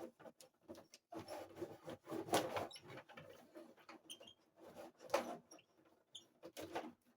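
Plastic tabletop hockey game in play: control rods sliding and spinning, and plastic players and puck clattering and knocking in a quick irregular run of clicks and rattles. The loudest knocks come about two and a half seconds in and about five seconds in.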